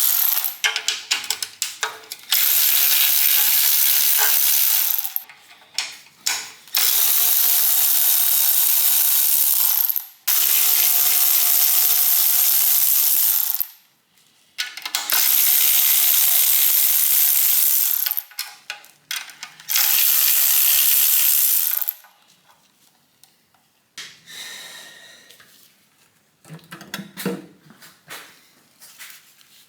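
A power tool spinning out the oil pan bolts on an engine being stripped down. It runs five times for about three seconds each, with clicks and metal handling between the runs, then a quieter clatter of parts near the end.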